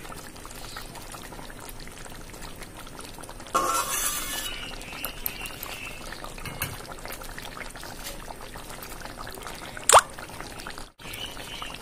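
Coconut-milk fish curry simmering in an aluminium kadai, the gravy bubbling steadily as it thickens. A louder burst of about a second comes about a third of the way in, and a single sharp click near the end.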